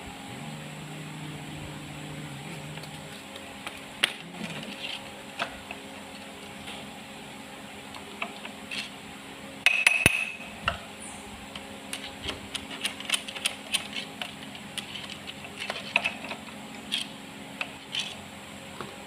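Steel hand tools clinking and tapping against the timing gears and front plate of a Perkins four-cylinder diesel engine block, with a louder metallic clatter about halfway through and a run of quick clicks in the second half.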